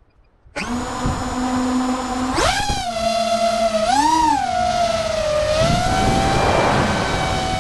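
DJI FPV drone's motors and propellers whining at a low steady pitch, then throttling up with a quick rise to a higher whine about two and a half seconds in. The pitch swells briefly around four seconds and then holds steady, with a rush of air noise near the end.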